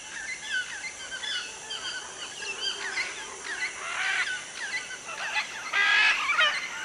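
Tropical rainforest dawn chorus: many birds calling and chirping at once, with a louder burst of squawking calls about six seconds in.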